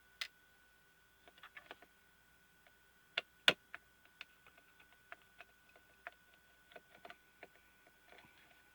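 Light clicks and taps of a screwdriver and small parts being handled while taking apart a pocket projector, with two sharper clicks about three seconds in.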